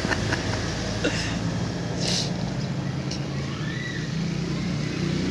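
An engine running steadily with a low hum, with a brief hiss about two seconds in.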